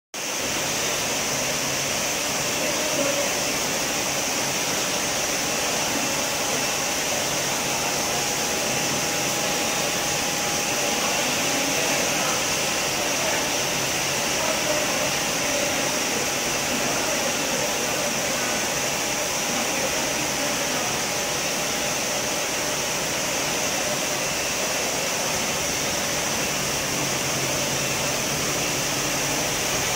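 A 12,000-bottle-per-hour pure-water filling line running: a steady, even machine whir with a hiss on top, and no distinct knocks or strokes. A faint steady whine sounds through the middle stretch.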